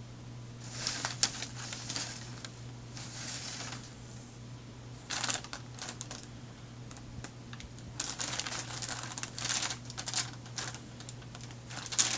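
Packing paper rustling and crinkling in irregular bursts as cats step on, paw and pounce through it, with sharp crackles about a second in and again near the end.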